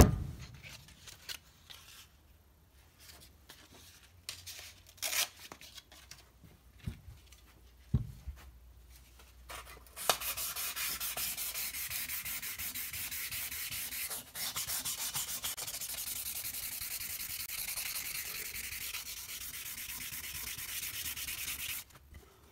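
A knock as the steel rifle barrel is handled, a few scattered scrapes, then a steady spell of rapid rubbing strokes as the barrel is rubbed down by hand with abrasive paper to take off rust. The rubbing starts about halfway through and stops abruptly just before the end.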